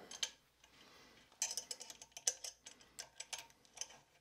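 A run of small, irregular clicks and light scraping as the Z-axis limit switch bracket is slid down the 3D printer's aluminium extrusion rail, its T-nuts ticking in the slot. The clicks start about a second and a half in.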